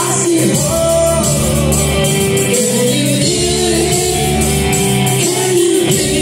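Rock band playing live, with singing over held bass notes and guitar, recorded from the audience on a phone.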